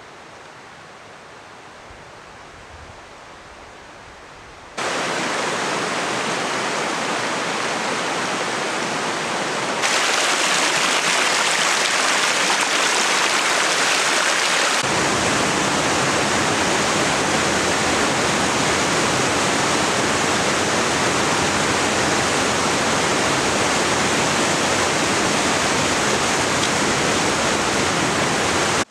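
Mountain creek water rushing over rocks, a steady noise that is fairly quiet for the first five seconds. It then gets louder in sudden steps at about five, ten and fifteen seconds in, and stays loud to the end.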